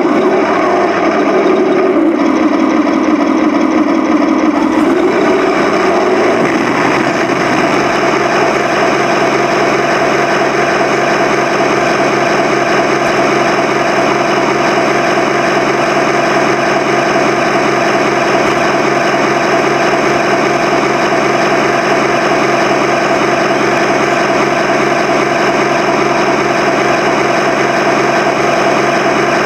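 Simulated tank engine sound from a 1/16-scale RC tank's sound unit, heard from on board the tank: a loud, steady engine drone whose pitch shifts a few seconds in and then holds.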